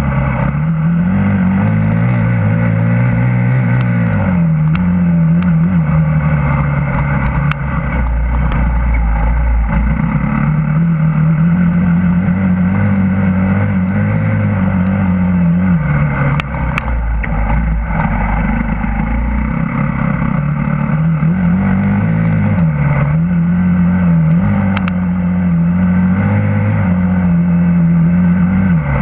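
Husqvarna TE 250 enduro motorcycle engine running while being ridden. The engine pitch rises and falls every few seconds as the throttle opens and closes, with a few short dips in loudness.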